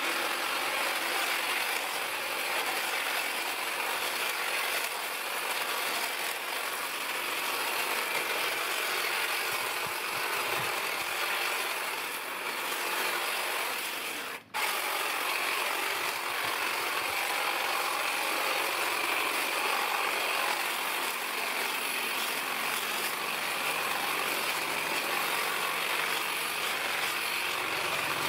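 Black+Decker GTC18504PC 18 V cordless hedge trimmer running steadily, its reciprocating blades cutting through the leaves and twigs of a hedge. The sound drops out for an instant about halfway through.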